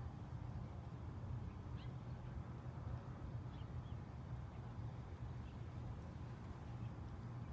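Outdoor neighbourhood ambience: a steady low hum with a few faint, short, high chirps scattered through it.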